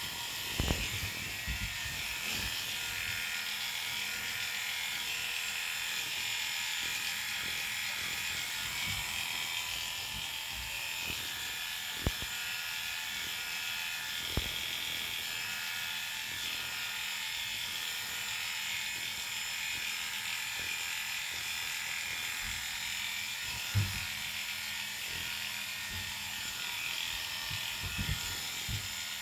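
Cordless electric dog clippers running with a steady buzz, cutting through an Airedale terrier's wiry coat. A few light knocks are heard along the way.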